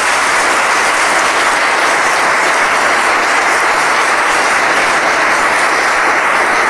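Large seated audience applauding, a dense, steady clapping that holds at one level throughout.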